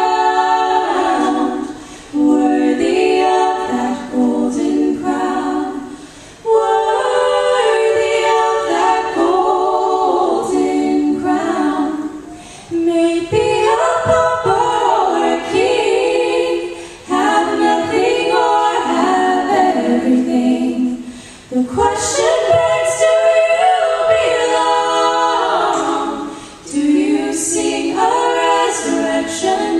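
Young women's voices singing a worship song in harmony through microphones, unaccompanied, in phrases of a few seconds with brief pauses between them.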